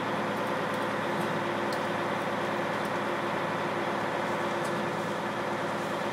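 Truck engine running steadily, a constant mechanical drone with a held hum.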